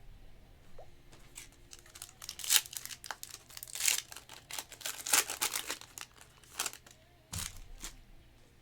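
Trading-card pack wrapper crinkling and being torn open, a run of short scratchy rustles and rips that is loudest about two and a half and four seconds in.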